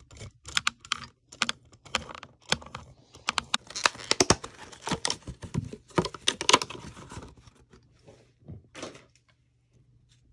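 Plastic pistol grip and receiver parts of a KWA M4 airsoft rifle being handled and fitted: a quick run of sharp clicks, knocks and rattles, dense for about the first seven seconds, then a few scattered knocks before it goes quiet near the end.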